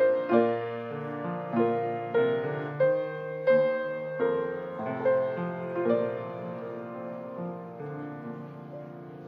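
Slow, gentle piano music: single notes and chords struck one after another, each ringing and dying away, growing softer over the last few seconds.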